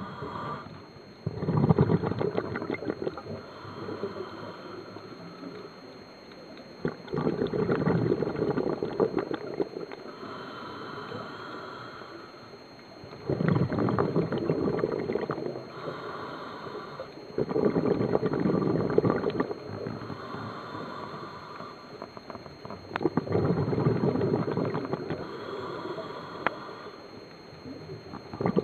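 Scuba diver breathing through a regulator underwater: a rush of exhaled bubbles, then a quieter hissing inhale, repeating about every five to six seconds, five breaths in all.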